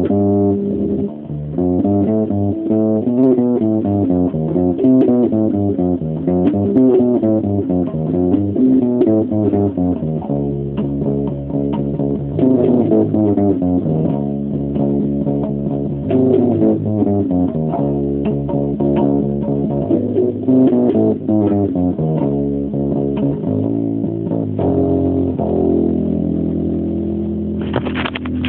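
Electric bass guitar playing improvised riffs: runs of plucked notes climbing and falling, then repeated notes, ending on a held ringing note. A brief scratchy noise comes near the end.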